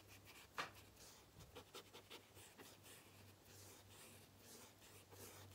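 Very faint scratching and ticking of a small paintbrush being stroked over paper, over a steady low hum.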